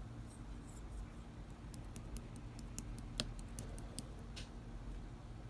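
Slime being handled, giving a scatter of small sharp clicks and pops over a faint low hum, the loudest a little past the middle.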